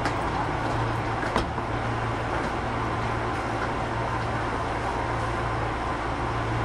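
Osaka Metro 25 series subway train heard from inside the car: a steady hum and rumble of running noise, with one sharp click about a second and a half in.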